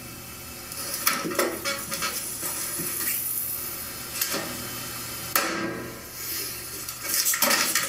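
Floppy disk being pushed into a Macintosh Classic II's floppy drive: a few separate clicks and knocks, the loudest about five seconds in.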